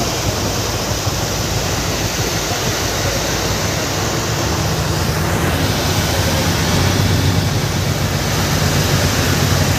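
Steady rush of wind and sea water on a fishing boat, with a low, steady engine hum that grows stronger about three and a half seconds in.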